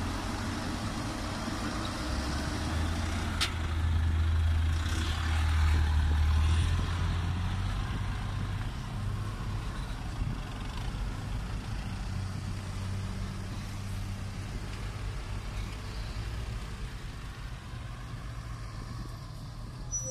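A loaded ten-wheel dump truck's diesel engine pulling away, a deep drone that swells for a few seconds and then eases off, over the steady running of a Doosan DX225LC excavator's diesel engine. There is one sharp click partway through.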